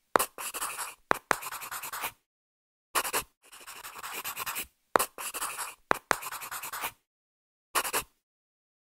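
Pen scratching across paper in a run of quick strokes separated by short gaps, like handwriting a word.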